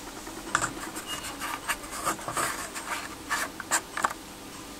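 Small iron parts holding a freshly magnetized magnet handled and turned over in the hands: a string of irregular light scrapes and clicks of metal against metal and skin.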